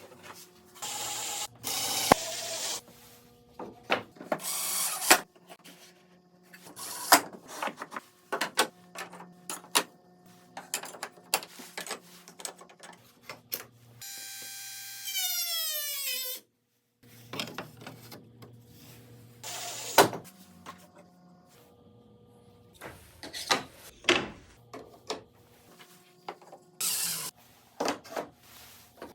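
Woodworking tools and pieces of wood being handled, with irregular knocks, clicks and short bursts of rubbing or sanding. About halfway through, a small power tool's motor runs briefly, then winds down with a falling whine.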